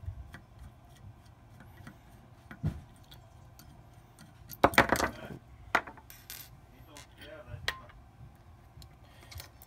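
Scattered small metal clicks and clinks as a screwdriver backs out the screws and lifts the old black safety thermostat off an espresso machine's metal heating element plate. A louder cluster of rattling clinks comes about halfway through.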